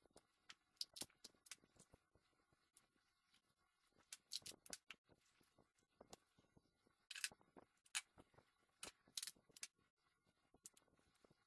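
Faint, scattered clicks, creaks and crinkles of a styrofoam box mold with bamboo skewers through it, and tape on it, being handled and pressed, with a few sharper crinkles in the middle.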